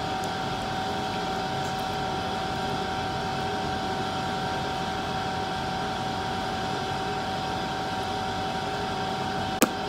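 Steady background hum and hiss with a constant thin whine, unchanging throughout, like a running fan or air conditioner in the room.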